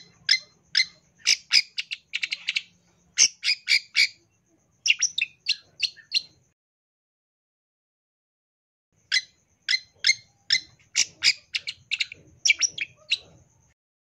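Long-tailed shrike (cendet) calling in a run of short, sharp notes about two a second, with a quick burst of rapid notes. It pauses for about two and a half seconds in the middle, then calls again and stops shortly before the end.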